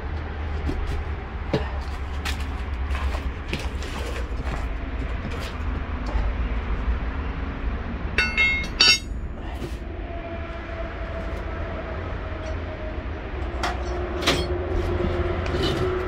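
Tire lever and screwdriver clicking and scraping against a small steel wheel rim as a knobby tire's bead is pried off, with a brief squeak about eight seconds in. A steady low rumble runs underneath.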